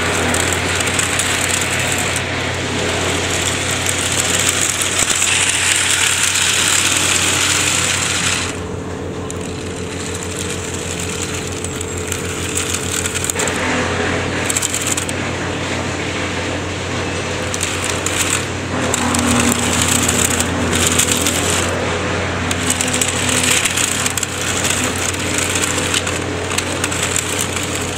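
Small 6 V geared DC motors driving the plastic tracks of a Bruder toy excavator, running under load with a brick on board, a motor whine mixed with the tracks clattering over concrete paving. The level and pitch change several times as the unit is driven and steered.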